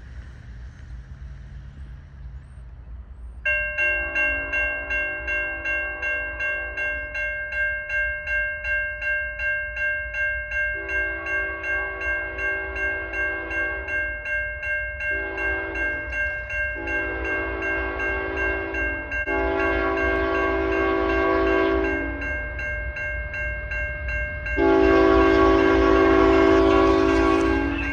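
CN 3143's Nathan K5HL five-chime air horn sounding the level-crossing signal: two long blasts, a short one, then long ones, the last and loudest near the end. A crossing bell rings rapidly beneath it from about three seconds in.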